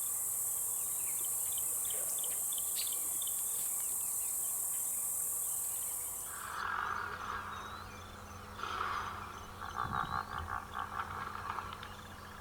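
Insects shrilling with a loud, steady, high buzz that cuts off abruptly about halfway through. Then come repeated coarse calls, one rapidly pulsed, with a few faint bird chirps over a low steady hum.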